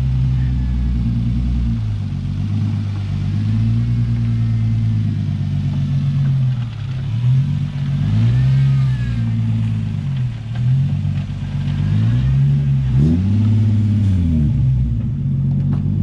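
Nissan 350Z's V6 engine, running with no exhaust fitted, on the move. Its revs climb and drop again and again as the car is driven and accelerated.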